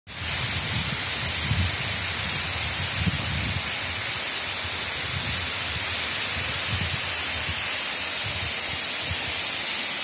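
Mountain waterfall cascading down a rock face: a steady rushing hiss of falling water, with irregular low rumbles underneath.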